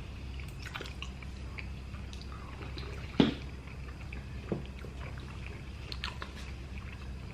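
Close-miked eating: chewing and small wet mouth clicks, with one sharper click about three seconds in, over a steady low hum.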